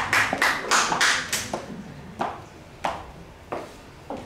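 Applause thinning out and stopping about a second and a half in, followed by five sharp, evenly spaced taps, about three every two seconds: high-heeled shoes stepping across a hard stage floor.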